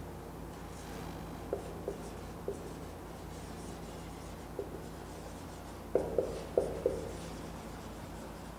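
Marker writing on a whiteboard: light ticks and squeaks of the tip on the board, a few scattered at first, then a quicker run of strokes about six to seven seconds in, over a faint steady low hum.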